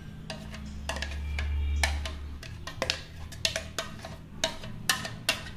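Silicone spatula scraping thick batter out of a steel mixer-grinder jar into a steel bowl: a run of light clicks and taps against the metal, with a low hum underneath in the first couple of seconds.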